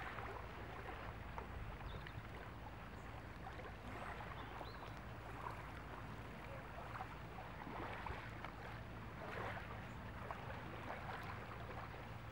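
Calm sea water lapping gently at the shoreline: a faint, steady wash with small splashes and trickles.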